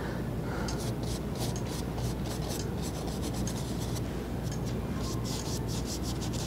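Bristle brush scrubbing oil paint onto stretched canvas in quick, repeated rubbing strokes, under a steady low room hum. The painter is roughly blocking in and darkening the background.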